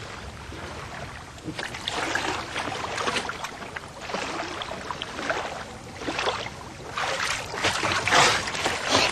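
Seawater splashing and sloshing in a narrow rock crevice as a man ducks under and struggles back up, in irregular surges that grow stronger near the end.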